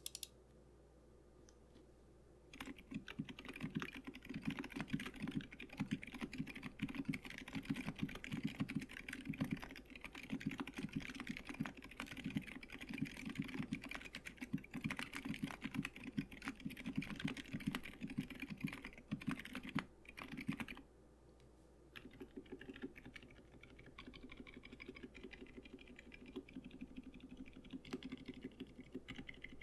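Fast typing on a mechanical keyboard with Durock T1 Silent Shrimp switches, a polycarbonate plate and tape-modded PCB: a dense run of keystrokes starts a couple of seconds in, stops for about a second about two-thirds through, then resumes more lightly. The switches are damped but not dead silent.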